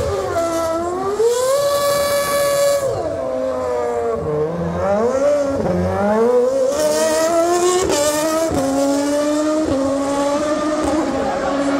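Red Bull Racing Formula 1 car's engine revving hard, its pitch sweeping up and down, with a few abrupt steps in pitch in the second half.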